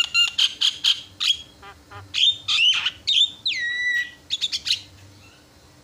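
Javan myna singing a loud, varied song of rapid chattering notes and calls that rise and fall. About three and a half seconds in comes a whistle that drops in pitch and holds, then a few quick notes before the song stops about five seconds in.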